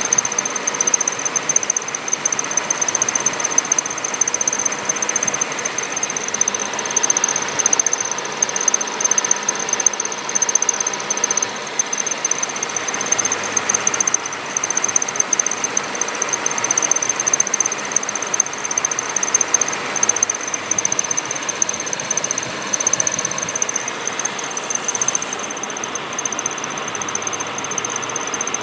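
Poly-V (serpentine) drive-belt tensioner whistling over a running engine: a steady, high-pitched continuous whistle that thins slightly near the end.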